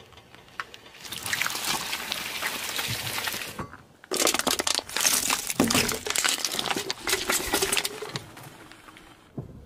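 A car tyre rolling over and squashing a block of jelly, a wet crackling squish. After a cut about four seconds in, the tyre crushes aluminium drink cans, a longer crumpling crackle with many small clicks.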